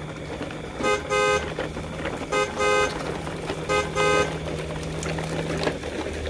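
A horn honking three times in double toots (toot-toot), each pair about a second and a half apart, over a steady low hum.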